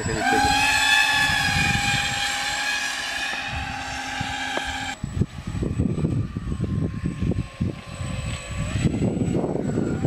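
Homemade RC plane's electric motor and propeller whining at a steady high pitch, rising slightly as it starts. About halfway through the sound cuts to a fainter whine under gusty low rumbling noise, which rises in pitch near the end.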